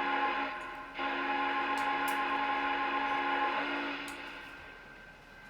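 Electronic steam-whistle sound from the sound system (TMCC RailSounds) of a Lionel O scale Rio Grande 4-6-6-4 Challenger model: a chord of several steady notes. One blast cuts off about half a second in, and a longer blast starts about a second in, holds steady, then fades out over the last second or so.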